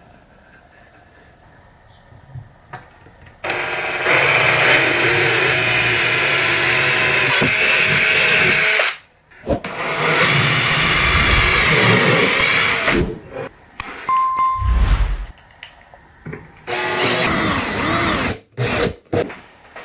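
Cordless drill-driver driving screws into pine boards, its motor running in several long runs with shorter bursts near the end.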